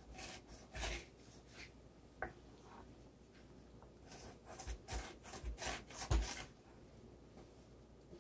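Two wooden spatulas tossing cooked, butter-coated penne in a skillet, scraping and knocking against the pan in scattered strokes. The strokes are busiest from about four to six and a half seconds in.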